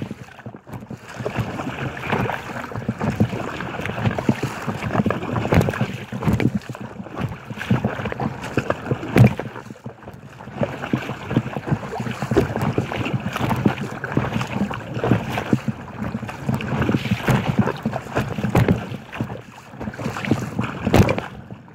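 Choppy waves slapping and splashing against the hull of an inflatable kayak in irregular surges, with wind buffeting the microphone.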